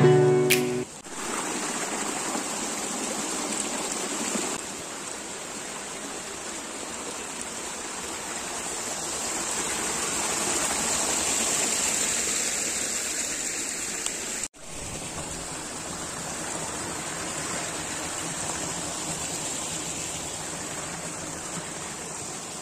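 Steady rush of running water, with the music ending just after the start and a brief cut in the sound about fourteen seconds in.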